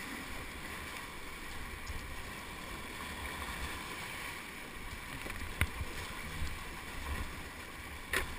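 Whitewater rapids rushing steadily around a kayak as it is paddled, with two sharp knocks, one about five and a half seconds in and one near the end.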